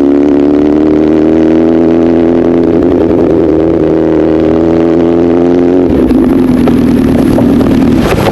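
Honda CBR1000RR inline-four engine running at steady revs through an SC-Project aftermarket exhaust while riding, its pitch creeping up over the first few seconds. About six seconds in the note changes and wind rush grows.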